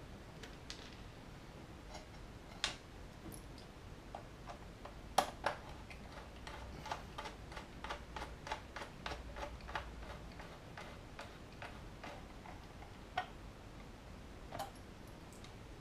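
Small screwdriver turning a long body-shell screw into the plastic underside of a Heljan O gauge Class 45 model locomotive: scattered single clicks, then a run of light, even clicks about three a second for some five seconds in the middle.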